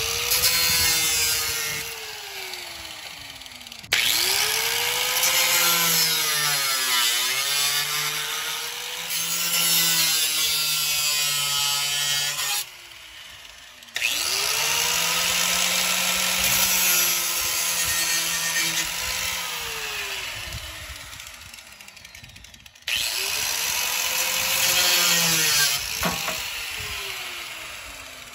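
Ryobi angle grinder cutting through plastic grille supports in several passes. The motor's pitch sags each time the disc is pushed into the plastic and climbs back as it frees up. It stops for a moment about halfway, again briefly later on, and winds down near the end.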